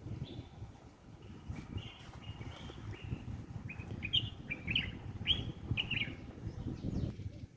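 Small birds chirping, a run of short quick calls in the middle few seconds, over a steady low rumbling background noise.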